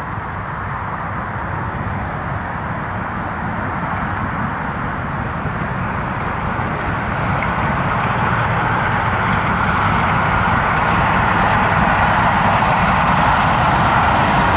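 LMS Stanier Black 5 4-6-0 steam locomotive hauling a train of coaches at speed: a steady rush of exhaust and running noise that grows louder as it approaches.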